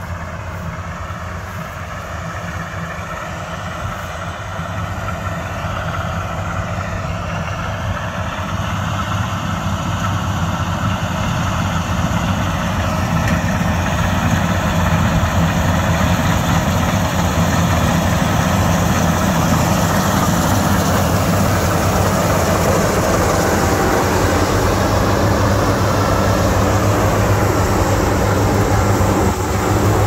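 Vardhman track combine harvester running under load as it cuts standing paddy, a steady engine-and-machinery hum that grows steadily louder over the first half as the machine comes close, then holds.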